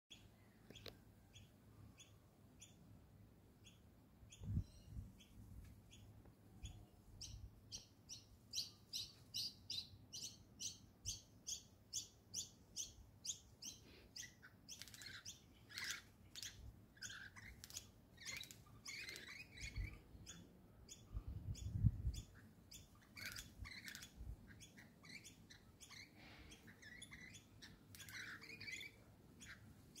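Rainbow lorikeets calling while they feed: a run of short, evenly spaced high chirps, about two a second, then from about halfway a busier, lower chattering of mixed calls. A few low thumps come through as well, the loudest near the end.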